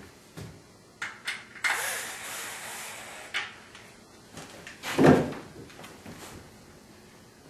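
Wooden slats being handled: a few light clicks, a scraping slide of wood on wood of about a second and a half, then one heavier wooden knock about five seconds in.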